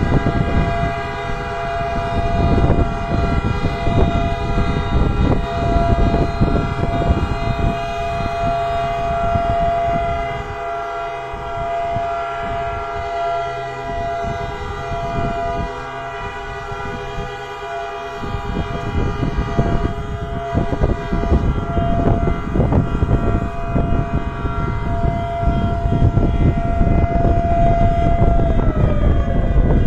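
Remembrance sirens and horns sounding together in one long, steady, many-toned blare, the 9:05 signal marking Atatürk's death anniversary; near the end one tone slides down in pitch as it winds down. A low rumbling noise runs underneath.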